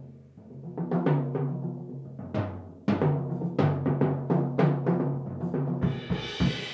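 Jazz drum kit played in a rapid run of tom and bass-drum strokes with ringing low tones, ending with a cymbal crash about six seconds in that rings on.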